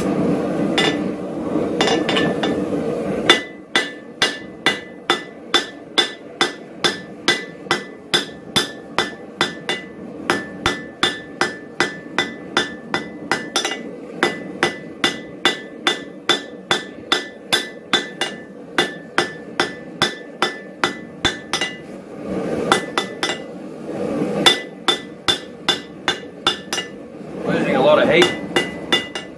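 Blacksmith's hand hammer striking hot steel on an anvil while drawing out a taper: a long run of even blows, about three a second, each with a ringing note. The blows come sparser later on, and a steady rushing noise sounds near the start and again near the end.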